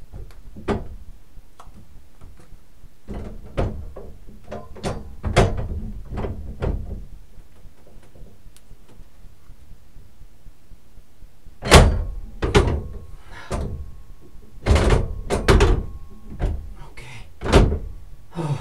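Metal parts of an 1885 tower clock movement being handled and fitted, giving a series of irregular knocks and clicks. The loudest knock comes about twelve seconds in, with a cluster of them near the end.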